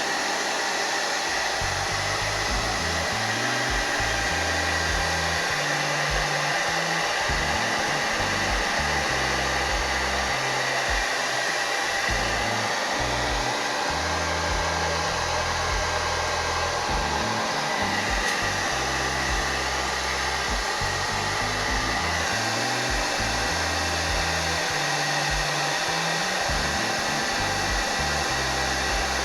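Handheld hair dryer running steadily on hot heat.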